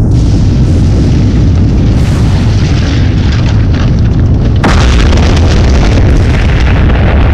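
Volcanic eruption sound effect for the animation: a continuous deep rumble with booming blasts. A sudden louder rush of rough noise comes in about halfway through as the blast spreads.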